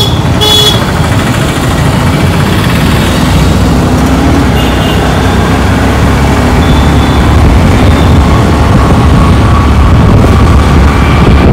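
Wind rumbling on the microphone of a moving motorcycle, over engine and street-traffic noise, growing a little louder as it goes. A vehicle horn toots briefly right at the start.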